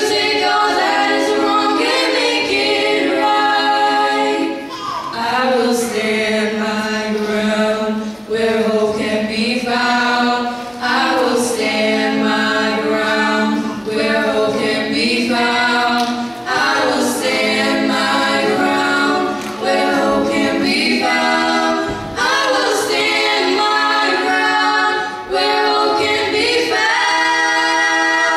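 Three female voices singing a cappella in harmony, with long held notes and short breaks between phrases.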